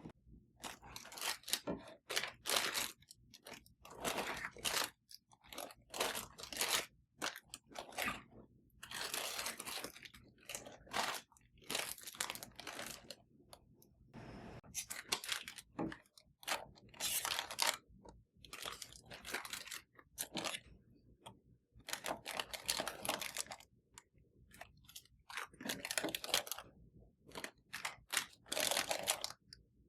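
Irregular crunching and rustling, each burst about half a second to a second long, with short pauses between.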